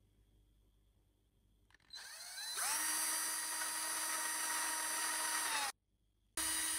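Cordless drill drilling a hole through a piece of PVC pipe. The motor spins up about two seconds in and runs steadily for about three seconds, then cuts off, with a second short run near the end.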